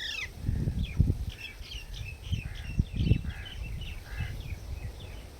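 Blue Indian ringneck parakeet chirping: a rapid string of short, high chirps. Irregular low thumps sound underneath.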